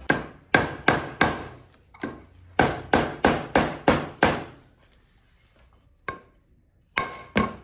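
Soft-faced mallet striking the cylinder head of a 2005 Yamaha R1 inline-four engine to break it loose from the old head gasket. About a dozen sharp blows come in two quick runs of about three a second, then a pause and a few more near the end.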